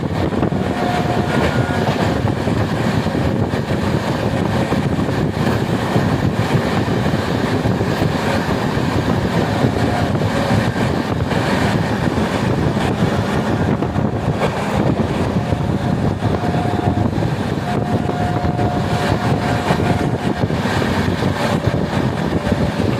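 Express passenger train running at speed: a steady loud rumble of wheels on rail with rushing air. A faint steady horn note from the WAP7 electric locomotive sounds several times, held longest in the second half.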